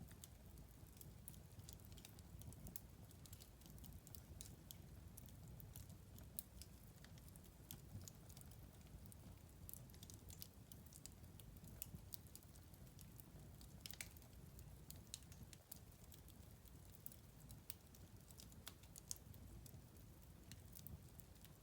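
Wood fire crackling faintly, with irregular sharp pops and snaps over a low, steady rumble.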